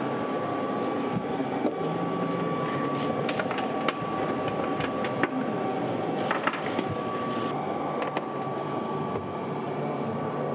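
Steady hum and hiss of background machinery in a large hall, with a faint steady high tone and scattered light clicks and knocks.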